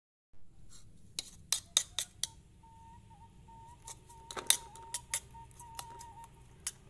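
A metal spoon clinking and scraping against a ceramic bowl as two raw eggs and chilli sambal are broken up and stirred: sharp irregular clinks in two bursts, the loudest about four and a half seconds in. A faint thin steady tone sits behind them from about two and a half seconds in.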